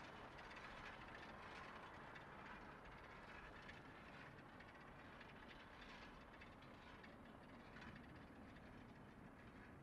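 Near silence: a faint, steady rushing hiss of night-time background noise.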